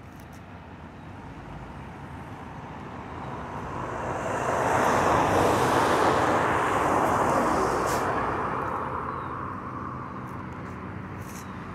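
A road vehicle passing by: its engine and tyre noise swells over a few seconds, loudest around the middle, then fades away.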